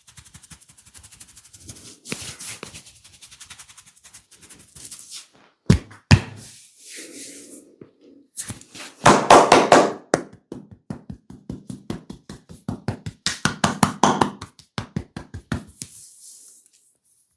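Head massage: fine scratching strokes through the hair, then bursts of rapid percussive taps and pats on the head, several a second.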